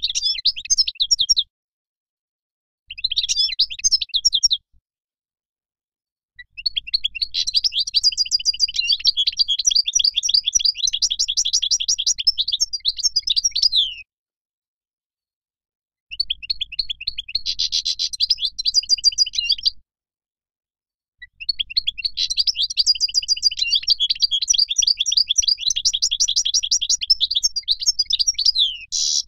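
A wild European goldfinch singing fast twittering phrases in five bursts, the longest about seven to eight seconds. Between the bursts are gaps of dead silence.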